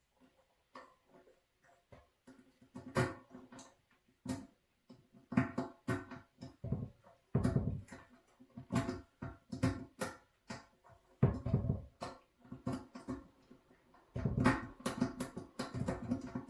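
Irregular metallic clicking and rattling of a lock pick and tension tool being worked in the locking fuel-tank cap of a 1989 Honda CBR600, in short bursts with brief pauses.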